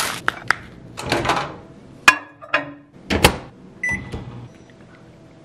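Plastic bag rustling and a few sharp clunks and knocks as food goes into a microwave oven, then a single keypad beep as the Express Cook button is pressed. The microwave then starts its steady low hum.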